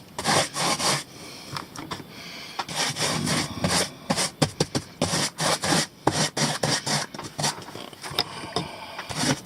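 Paintbrush scrubbing and dabbing a thin, watery plaster of Paris mix onto a rough paper-and-cardboard model hillside, a run of quick, irregular scratchy strokes.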